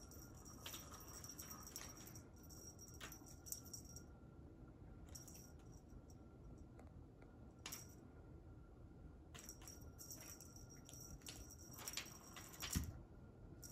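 Faint whirring and rattly clicking of a small motorized rolling cat toy, running in spurts with quiet gaps between, and a soft thump near the end.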